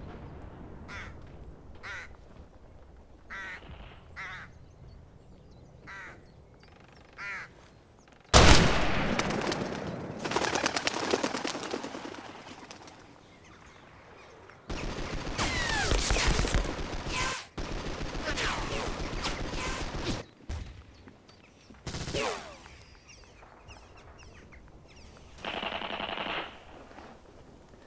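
Birds chirping, then a sudden loud blast about eight seconds in, followed by stretches of gunfire and battle noise. A brief pitched call sounds near the end.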